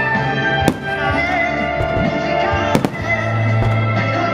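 Aerial firework shells bursting: one sharp bang early and a quick pair of bangs a little past halfway, over continuous music with long held notes.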